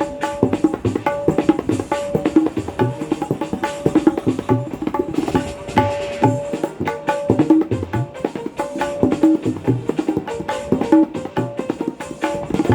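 Tabla played in a fast, continuous pattern, with ringing pitched strokes on the treble drum and deep strokes on the bass drum that bend in pitch. It renders the iPhone ringtone on tabla.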